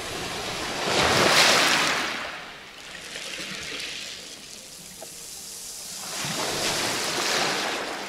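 Small waves of a calm sea washing up onto a pebble beach, with the hiss of water running over the shingle. Two surges, one about a second in and a second near the end.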